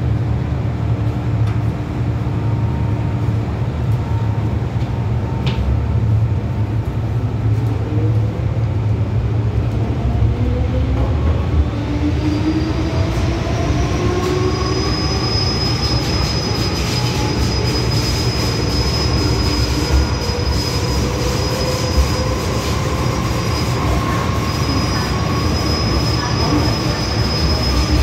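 MTR M-Train electric multiple unit heard from inside the carriage: a steady low running rumble. From about a third of the way in, the motor tones rise in pitch as the train gathers speed, and a thin high whistle joins them about halfway through.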